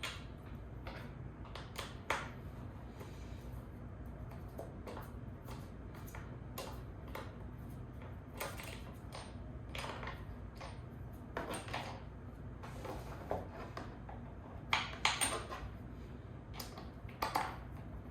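Scattered clicks and light knocks of metal bolts and chair parts being handled and hand-threaded during office chair assembly, busiest in the second half, over a steady low hum.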